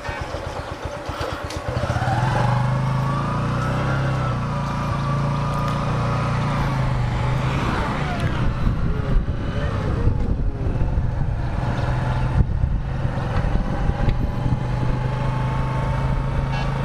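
Motorcycle engine running while riding: a low pulsing for the first couple of seconds, then a louder, steady engine note as the bike picks up speed.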